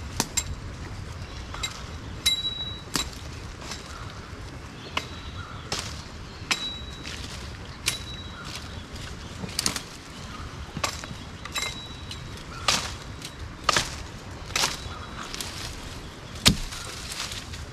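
Blade chopping at a wooden stick to shape a spear, sharp strikes at about one a second, some with a brief metallic ring.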